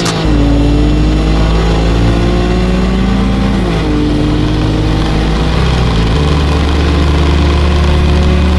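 Nissan Skyline GT-R R33's twin-turbo straight-six at full throttle, heard from inside the cabin. It climbs steadily in pitch, and the pitch drops at each upshift, once right at the start and again about three and a half seconds in.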